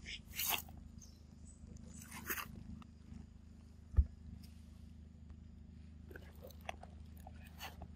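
Short crackling rustles of leaves and twigs as baby monkeys scramble over the leaf litter and rocks, with a single dull thump about four seconds in.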